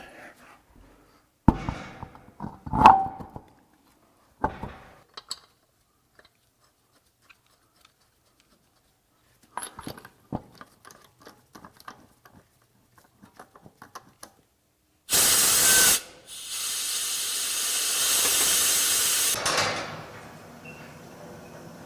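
Metal clanks and knocks of hand work on a car's wheel hub, the loudest about three seconds in, then light scattered clicks. Near the end comes a short and then a longer burst of hissing compressed air from a pneumatic tool.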